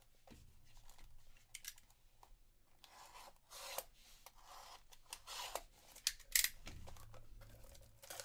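Plastic shrink-wrap being cut and torn off cardboard boxes of trading cards: scratchy rustling and tearing, with a couple of sharp clicks about six seconds in as the box is handled.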